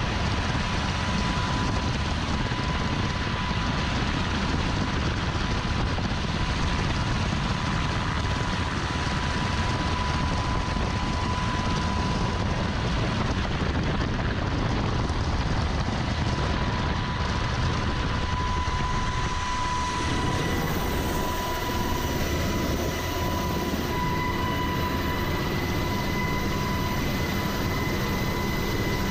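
U.S. Coast Guard rescue helicopter's rotors and engines running loud and steady, heard through the open cabin door during a hoist, with a thin steady high whine running through the noise.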